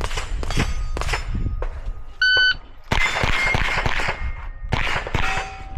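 Competition shot timer gives one short, high electronic beep about two seconds in, and a fast string of rifle shots follows over the next few seconds. Scattered gunshots sound before the beep as well.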